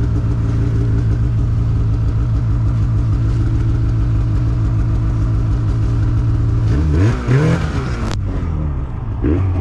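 Polaris snowmobile engine running at steady revs, then revving up sharply twice near the end.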